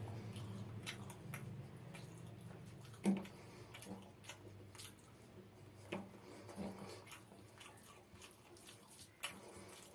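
Close-miked eating sounds: chewing with wet mouth clicks and lip smacks, the loudest smack about three seconds in and others near six and nine seconds. Fingers mix rice in mustard gravy on the plate.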